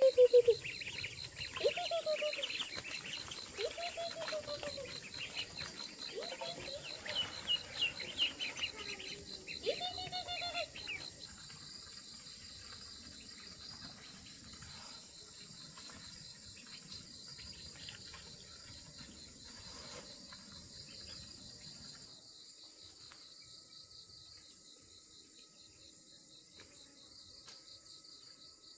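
Birds calling repeatedly in short rising-and-falling calls, loudest at the start, over a steady, fast-pulsing chorus of crickets. The calls stop about a third of the way in, leaving only the insects.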